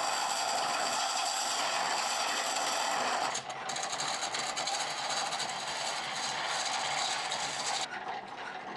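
A hand-held turning tool cutting a spinning wooden chisel handle on a treadle lathe, making a steady rasping hiss. The sound changes abruptly about a third of the way in, and again near the end, where it turns duller.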